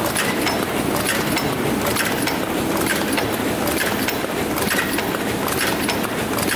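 Dakiou-N paper cup forming machine, gearbox-driven, running at production speed: a steady mechanical clatter of quick, repeated clicks and knocks from its indexing turntable and forming stations.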